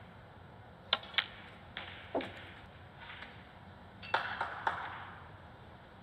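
Snooker balls clicking. Two sharp clicks come about a second in, a quarter second apart, with a few softer knocks after them and a quick run of clicks just after four seconds, over faint hall room tone.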